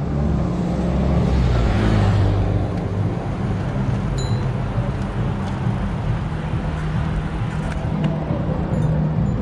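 Steady road and traffic noise heard from a moving bicycle, with a low rumble of wind and rolling on the microphone; a louder whoosh swells and fades about two seconds in.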